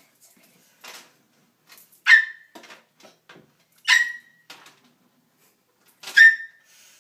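A child's voice giving three short, sharp, high-pitched squeaks, about two seconds apart.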